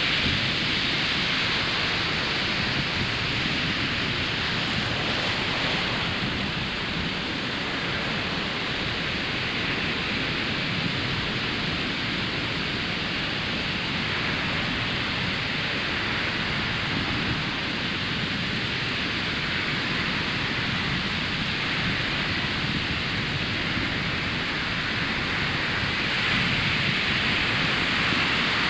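Ocean surf breaking and washing on a sandy beach: a continuous rushing wash that swells slowly, louder near the start and again near the end.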